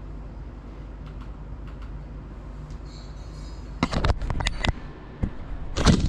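Small FPV drone (GEPRC Cinelog 35) with its motors and propellers spinning up near the floor: a brief high motor whine about three seconds in, then loud rushing bursts of prop noise from about four seconds in and again just before the end, over a low steady hum.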